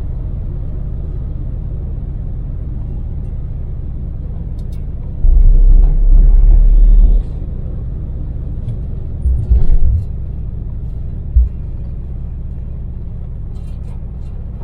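Daewoo Damas microvan, running on LPG, driving at expressway speed: a steady low engine and road rumble, which swells much louder for about two seconds midway, with a few short low thumps after.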